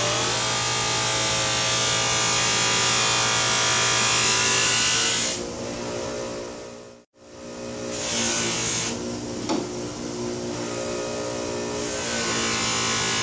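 Small bench grinder running with a cloth buffing wheel while a steel knife blade is held against it for polishing, a steady motor hum with a hiss. The sound drops off around seven seconds in, then comes back quieter before rising again near the end.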